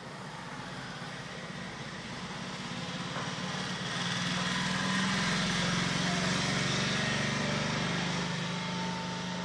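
A steady motor drone with a low hum, growing louder over the first few seconds, holding, then easing off a little near the end.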